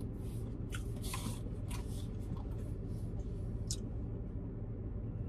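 Rustling and crinkling of a cardboard takeout box and paper food packaging, a few short scratchy sounds spread through, over a steady low hum inside a car's cabin.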